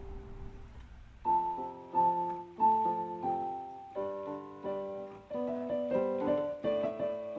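Background piano music: single notes and chords struck one after another and left to ring, coming in about a second in.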